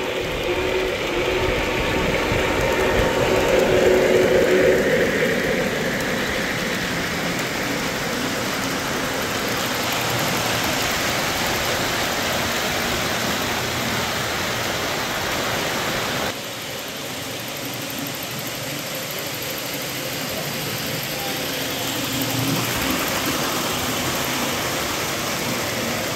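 O gauge three-rail model trains running on the layout: a steady rumble of metal wheels on the track, loudest in the first few seconds as the steam locomotive passes close by. The level drops suddenly about two-thirds of the way through.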